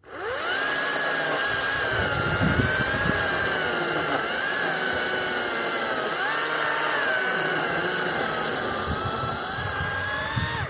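Kobalt 40V Max cordless electric chainsaw spinning up and cutting into cedar close to the ground. The motor whine rises sharply as it starts, wavers in pitch as the chain loads in the wood, and cuts off suddenly at the end when the trigger is released.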